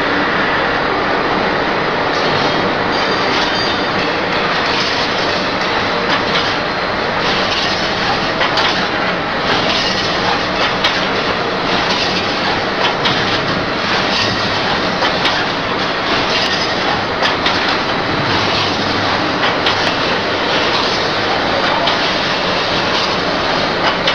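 Barrier wire mesh welding machine running: a steady mechanical clatter with a brighter burst of crackle about every second and a half as the row of welding heads fires across the mesh.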